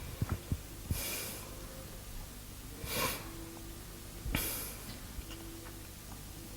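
A person breathing audibly, three short breaths or sniffs close to the microphone, after a few small clicks at the start.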